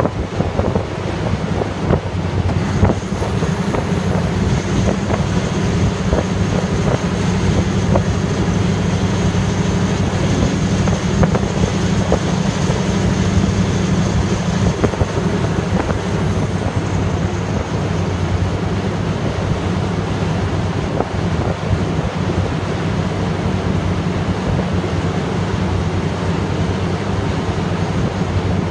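Perkins diesel engine of a 500 kVA generator set running steadily, with a faint high whine through about the first half.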